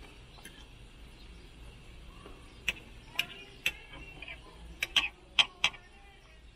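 Metal fork and knife clinking against a plate while cutting a steak: about seven sharp clicks with a short ring, grouped from a few seconds in to near the end.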